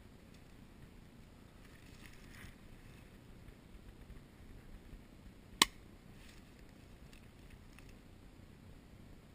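A single sharp crack from an airsoft pistol shot, about halfway through, over faint rustling movement.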